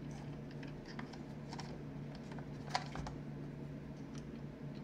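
A few light, sharp clicks and taps of a hand tool against the metal housing of a pneumatic palm sander as it is handled, the clearest about three seconds in, over a steady low hum.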